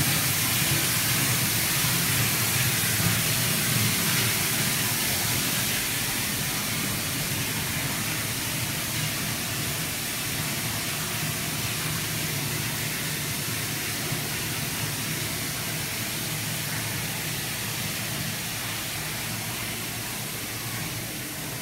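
Steady rushing hiss with a low hum beneath it, slowly getting quieter from about five seconds in.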